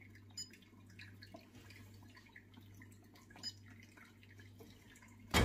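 Low steady hum of an electric oven's fan running in defrost mode, with a few faint ticks. A loud thump comes right at the end.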